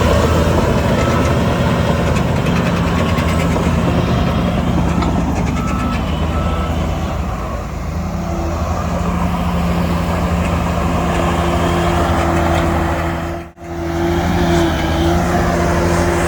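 Heavy diesel earthmoving machinery running steadily, a low engine drone, with a faint intermittent reversing beep during the first several seconds. The sound drops out for a moment a few seconds before the end.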